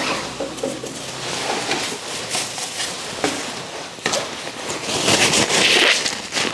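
Rustling and light knocks of things being handled and moved about as someone rummages below a table, growing louder and busier about five seconds in.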